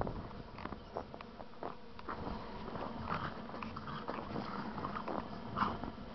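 Two pit bulls, a father and his puppy, play-fighting: scuffling and biting noises in irregular short bursts.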